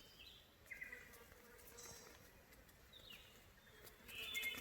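Faint buzzing of flies and mosquitoes swarming close by, a thin steady whine, with a few short, faint bird calls, one of them falling in pitch.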